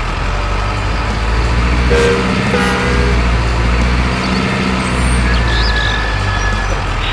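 Truck engine sound running steadily, with a truck horn blowing for over a second about two seconds in.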